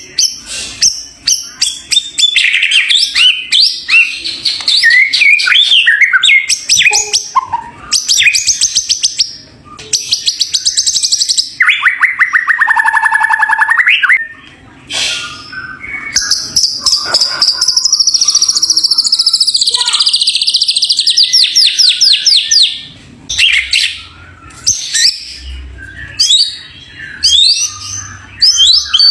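White-rumped shama (murai batu) singing loudly, a varied song of whistled phrases and fast trills with short pauses between them, including a long fast trill a little past halfway.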